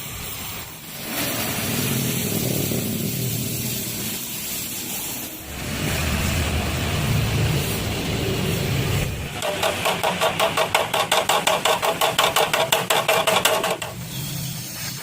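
Metalworking noise from patch-welding the rust holes in a motorcycle's steel frame, in several sections that change abruptly. In the last few seconds it turns to a fast, even pulsing, about five beats a second, which stops suddenly near the end.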